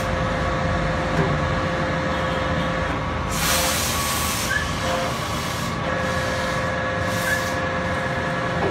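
Workshop machinery running with a steady hum of several held tones, broken by a loud burst of hissing about three and a half seconds in and a shorter hiss about seven seconds in.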